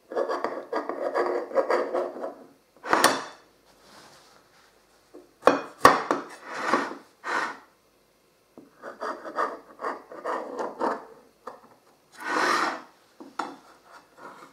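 Large kitchen knife cutting through a baked pumpkin pie and scraping against the pastry and the ceramic flan dish, in several scraping strokes with short pauses between them. Two sharp clicks come about five and a half seconds in.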